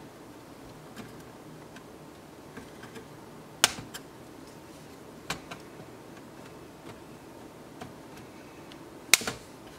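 Scattered sharp clicks and taps of plastic and metal parts as a PCI expansion board and its bracket are handled and pressed into a thin client's chassis. A loud click comes a little over a third of the way in, a smaller one past the middle, and a loud double click near the end, with faint ticks between.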